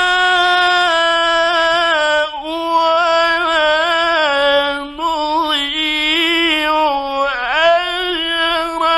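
Male Quran reciter chanting in the melodic mujawwad style, drawing out long held notes with wavering ornaments. The line breaks off briefly about two and a half, five and seven and a half seconds in.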